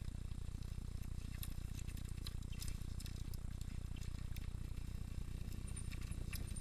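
Mountain bike riding along a dirt forest trail: a steady low rumble from the ride, with scattered small clicks and rattles from the bike.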